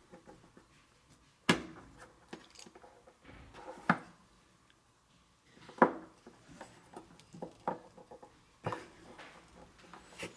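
Knocks and clicks of refrigerator drain-hose fittings being handled and pushed into place: four sharper knocks spread a few seconds apart, with lighter taps and clicks between.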